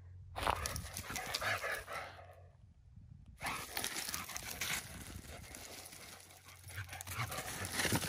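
A dog's paws scrabbling and scuffing on dry dirt and wood chips as it runs and turns about. The scratchy noise comes in two stretches, with a short lull about three seconds in.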